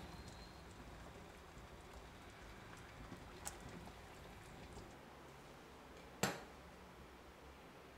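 Water boiling in a stainless steel pot of chicken and vegetables, a faint steady bubbling. A little past six seconds in comes a single sharp knock, the loudest sound.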